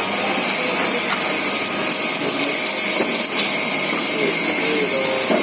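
Automatic sachet packing machine for liquid sugar running: a steady, loud hiss with mechanical whirring, without a break.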